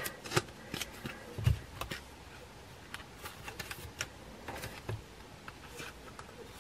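Photocards being slid into the plastic pocket sleeves of a binder page: faint, scattered clicks, ticks and rustles of card and plastic, with a soft thud about a second and a half in.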